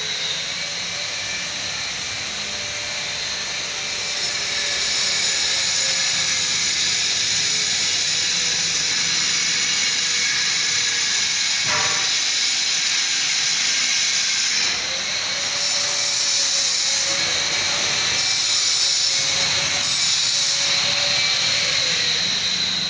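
Steady machine noise with a constant high whine and a lower, wavering hum, growing louder about four seconds in.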